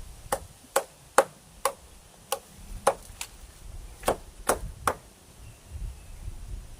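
About ten sharp blows of a hand tool striking sengon wood, in an uneven rhythm with some strikes coming in quick pairs.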